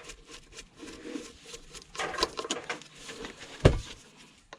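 Light clicks and scrapes of a small screwdriver and metal parts being handled as a T9 Torx screw is worked out of a cast aluminium unit, with one heavy thump about three and a half seconds in.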